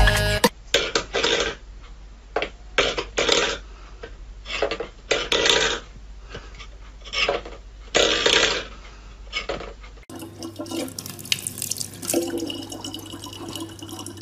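Background music cuts off within the first half second, followed by a string of short scraping or rustling noises, about a dozen over the next nine seconds. About ten seconds in, a kitchen tap starts running, a thin stream of water pouring into the neck of a plastic bottle, with a low steady hum beneath it.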